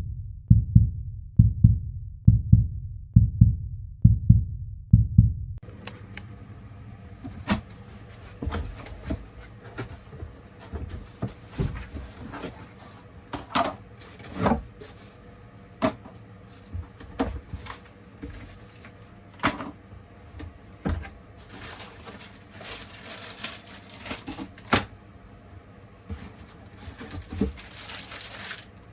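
A low, regular beat for the first five seconds or so stops abruptly. Scattered clicks, knocks and rustles follow as parts of a chainsaw are handled and fitted together during assembly.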